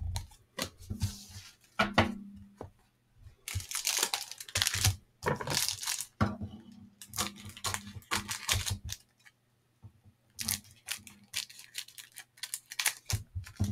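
Cellophane wrapper of a 1989 Fleer baseball cello pack being torn open and crinkled in irregular bursts, loudest about three and a half to five seconds in, as the cards are pulled out.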